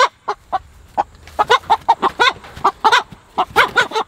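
A Big Red Broiler hen clucking in a run of short, quick calls that come in clusters, with a brief pause about a second in, as she is cornered and caught by hand.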